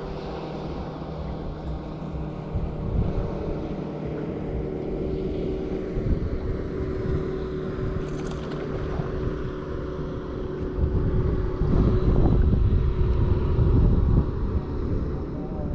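A boat motor hums steadily from a fishing boat, with wind rumbling on the microphone that gets louder about two-thirds of the way through.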